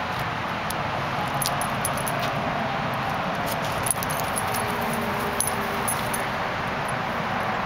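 Steady rush of interstate highway traffic, with light metallic jingling and clinking of a dog's collar tags and leash clip as the dog moves about.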